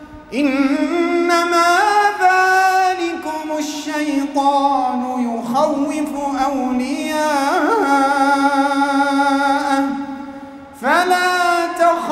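A male imam reciting the Quran in a slow, melodic chant through a microphone. His single voice holds long ornamented notes that glide up and down, fades out for a breath about ten seconds in, then starts the next phrase.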